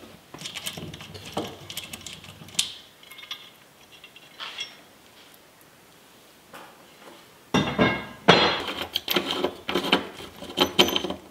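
Hand tools working metal bolts out of an aluminium camper door: a series of sharp clicks and metallic clinks. A few come in the first seconds, then it goes quiet, and a louder, quicker run of clinks starts about two-thirds of the way through.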